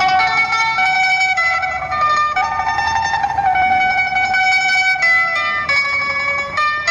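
Background instrumental music: a melody of plucked-string notes changing pitch every fraction of a second.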